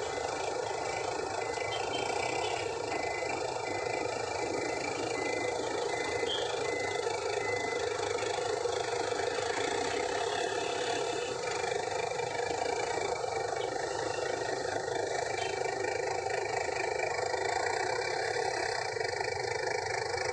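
A bus engine running as the bus reverses, its reversing alarm beeping in even pulses for about the first eight seconds, over steady road traffic noise.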